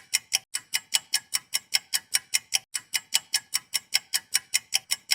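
Rapid, even clock-like ticking, about five ticks a second, the kind of countdown-timer effect that runs while a question is left to be answered.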